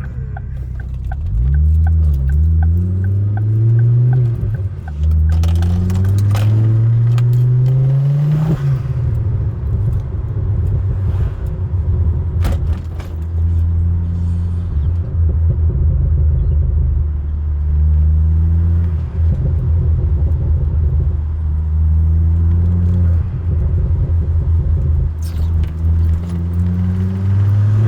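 Ford Focus ST engine accelerating hard, its note rising through a gear, dropping at the shift, then rising again through the next gear. It then settles into a steadier cruising drone with a few smaller rises and falls in pitch.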